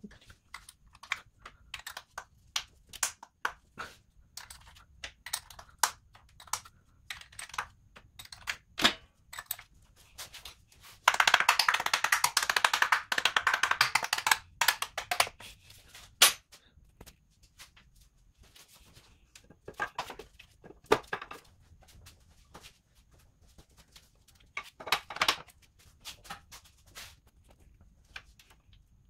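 Hand tools and metal engine parts clicking and knocking against a Toyota 2AZ cylinder head during reassembly, in scattered sharp clacks. About eleven seconds in there is a dense, noisy burst lasting about three seconds, followed by one louder clack.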